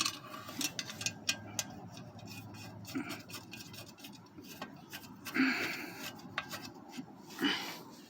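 Handling noise: scattered light clicks and taps, with two brief rubbing scrapes, one about halfway through and one near the end.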